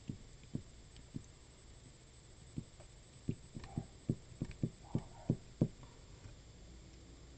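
Computer mouse being moved and clicked on a desk to draw handwritten letters: a run of soft, low knocks, a few spread out at first, then a quick cluster of about ten near the middle, over a faint steady hum.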